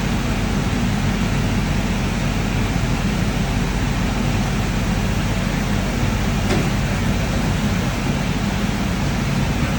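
Steady mechanical hum and whir of a large CNC double column machining center running under power, with a single faint click about six and a half seconds in.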